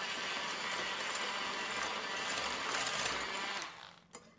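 Electric hand mixer whipping meringue in a glass bowl, its beaters whirring steadily, then winding down and stopping about three and a half seconds in. A single light click follows just after.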